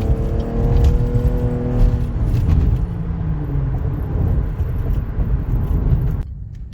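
Muffler-deleted Cadillac ATS engine and exhaust pulling under acceleration, its pitch holding steady for a couple of seconds, then easing off into a steady low exhaust rumble with road noise. The sound cuts off suddenly about six seconds in.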